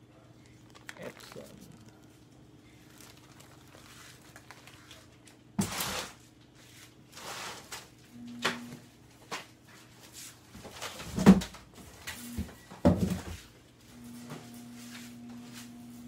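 A cardboard shipping box and its foam packing being handled: scattered knocks, scrapes and rustles, the loudest a sharp knock about eleven seconds in. A low steady hum comes in near the end.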